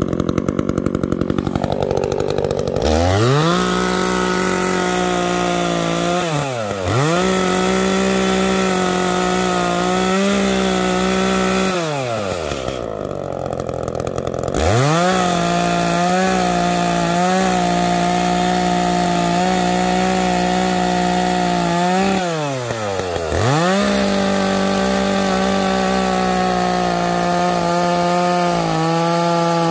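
Echo two-stroke chainsaw idling, then throttled up to full speed and cutting across a row of short cordwood logs. It eases off and revs back up three times, once idling for a couple of seconds in the middle.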